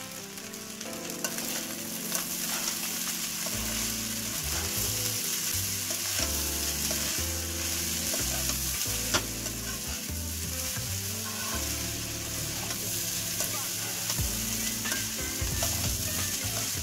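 Fried rice sizzling in a hot non-stick wok while a spatula stirs and tosses it, with scattered scrapes and light knocks of the spatula against the pan.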